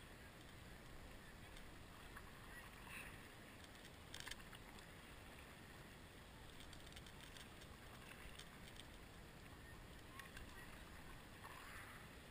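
Near silence: a faint steady hiss of river water around a paddleboard, with a faint tap about four seconds in.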